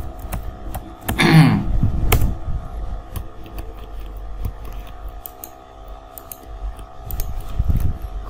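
Computer keyboard keystrokes and mouse clicks, scattered and irregular, over a faint steady hum. About a second in, a short voiced sound falling in pitch, the loudest moment.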